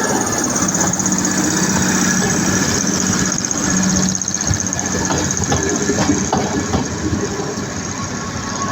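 Diesel multiple unit's engine running loudly at high idle through a cutout exhaust, a steady, rough engine note.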